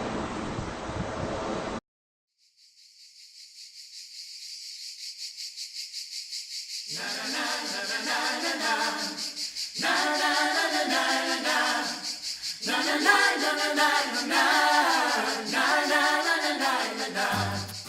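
Unaccompanied voices singing a song in several phrases, starting about seven seconds in. Before them, a gust of wind-like noise cuts off suddenly, then a high, steady hiss with a fast flutter fades in and runs under the singing.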